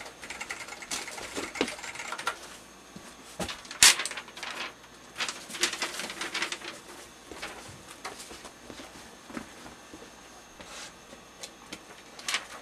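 Computer keyboard typing in irregular clicks, with a single sharp knock about four seconds in, then a sheet of paper rustling as it is handled.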